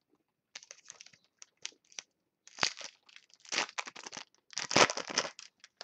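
Foil wrapper of a trading card pack being torn open and crinkled by hand, in irregular crackling bursts that thicken about halfway through.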